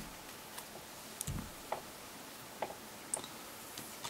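Light clicks and ticks of small smartphone parts being handled and set down during disassembly, scattered irregularly, with one soft low bump about a second and a half in.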